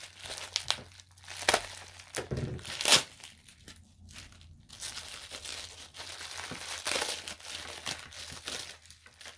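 Clear plastic bag and wrapping crinkling and tearing as a crystal is unwrapped by hand, with a few sharp crackles in the first three seconds and steadier rustling after that.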